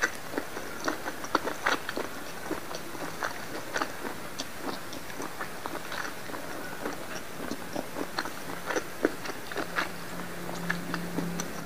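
Close-up chewing of a mouthful of squid-ink pasta: soft, wet smacking and clicking mouth sounds at an irregular pace. A low steady hum joins in near the end.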